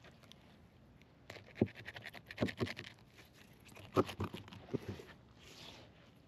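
Fillet knife cutting through a snapper on a plastic cleaning board, a run of short scrapes and crunches as the blade works through skin, scales and rib bones. The strokes are densest a little past the first second and again around the fourth second.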